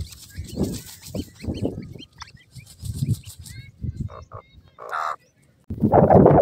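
Francolin (teetar) chicks dust-bathing in dry soil: irregular soft scuffling and flicking of dirt, with faint high peeps in the first couple of seconds. Near the end, after a brief hush, a louder steady rushing noise begins.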